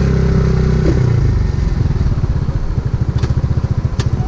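Single-cylinder four-stroke engine of a Rusi Macho 150 running on a test ride with an oversized 30mm carburetor on an otherwise stock engine. The note holds steady for about a second and a half, then drops to a slower, choppier beat as the revs come down. There is a sharp click near the end.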